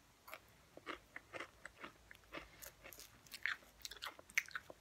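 Potato chips crunching as they are bitten and chewed: an irregular run of crisp crackles that grows busier partway through.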